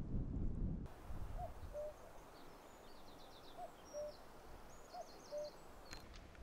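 Wind rumbling on the microphone, cut off about a second in. Then a bird's low two-note hooting call, the first note higher than the second, repeats three times, with small songbirds chirping and trilling higher up.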